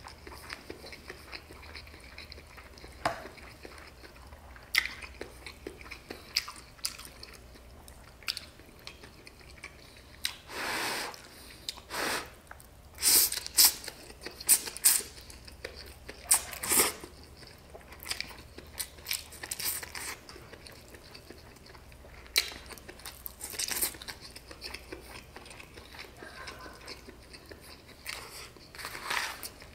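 Close-miked chewing of stir-fried chow mein noodles and chicken, with a run of loud noodle slurps about halfway through.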